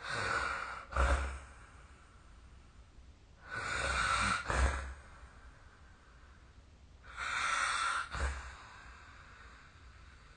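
A sleeping person snoring: three noisy breaths about three and a half seconds apart, each ending in a brief sharper burst.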